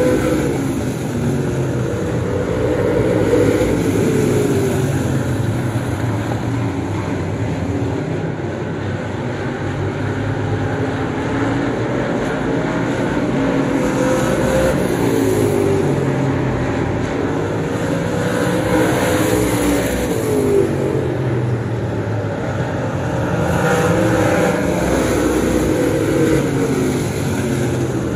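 Street stock race car's V8 engine at racing speed, revving up and easing off again over and over as it laps the oval.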